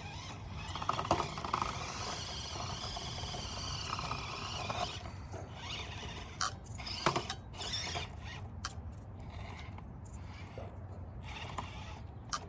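Axial SCX24 micro RC crawler's small electric motor and gears whining, the pitch rising and falling as it crawls, with scattered clicks and knocks from the truck working over the terrain in the second half.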